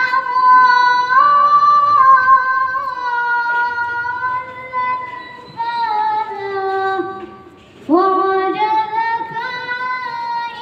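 A boy singing solo into a handheld microphone, amplified through a loudspeaker, in long drawn-out notes; he breaks off for a breath about seven and a half seconds in and starts a new phrase.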